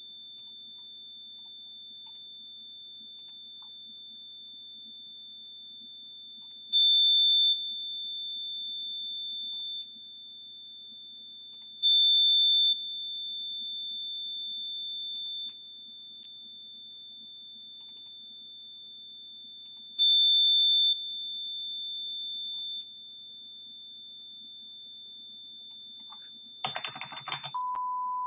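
Steady high-pitched sine test tone at 3,554 Hz from signal-generator software. It is turned up three times for a few seconds each, loud for a moment and then at a middle level, before dropping back, with faint clicks over it. Near the end comes a brief rough burst, and then the tone changes to a steady, lower 1,000 Hz.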